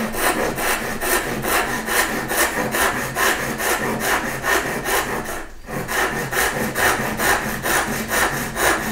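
Japanese pull saw cutting down through a wooden board by hand in quick, even strokes, with one short break a little past halfway. It is the vertical cut down to the halfway line of a halving joint.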